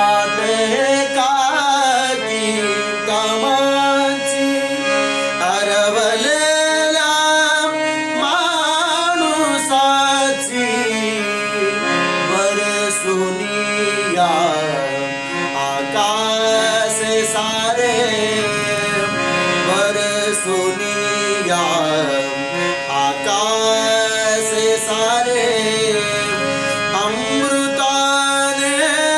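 A man singing a slow traditional Indian melody with gliding, ornamented pitch over a steady drone.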